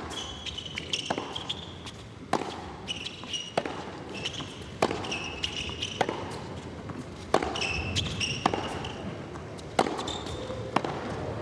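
Tennis ball struck back and forth in a long rally on an indoor hard court: sharp racquet hits about every 1.2 seconds, with high, short shoe squeaks on the court between shots.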